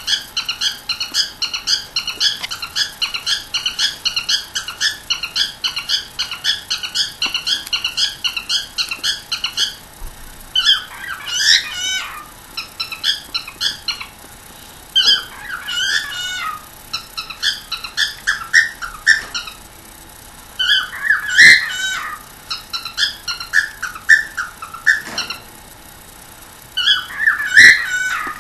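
Pet cockatiel vocalising: a fast run of short repeated chirps, about four or five a second, for the first ten seconds. Then louder warbling calls and squawks come in bursts with short pauses between them.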